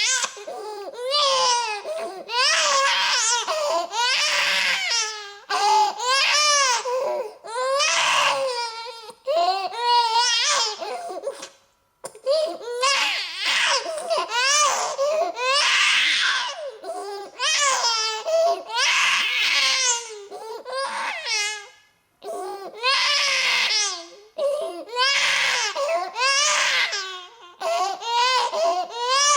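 Infant crying: a string of high-pitched wailing cries a second or two each, broken by short gasping pauses and two brief silences.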